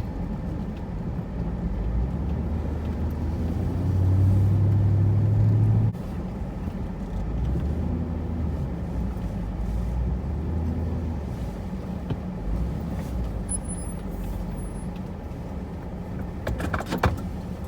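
Pickup truck driving, its engine and road noise a steady low rumble, with a louder steady hum for about two seconds around four seconds in that cuts off sharply. A short cluster of clicks and knocks near the end.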